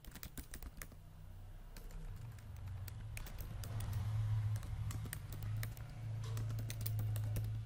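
Computer keyboard being typed on, irregular keystroke clicks, over a steady low hum.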